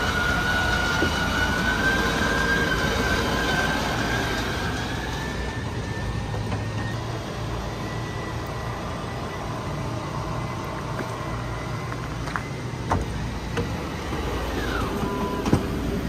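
Electric slide-out motor of a fifth-wheel RV running as the front slide room extends: a steady whine that slowly climbs in pitch, then drops about a second before the end, with a low rumble underneath and a couple of clicks a few seconds before the end.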